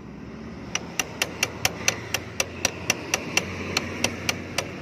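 Hammer tapping on metal in rapid, even strikes, about four a second, starting about a second in: driving a pin through a rusted motorcycle drive chain.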